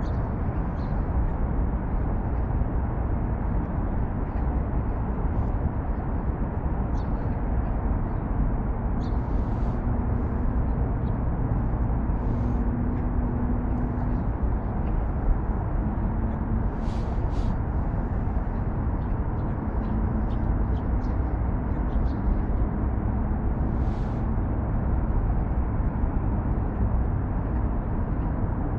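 Steady hum and rumble of distant road traffic on and around Seongsan Bridge, with faint short high clicks now and then.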